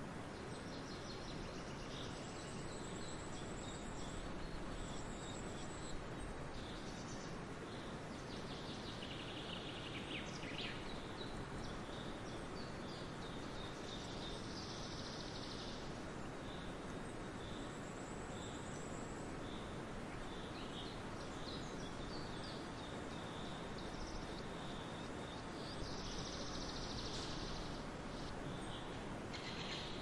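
Small songbirds singing and calling in short phrases every few seconds, high-pitched, over a steady outdoor hiss.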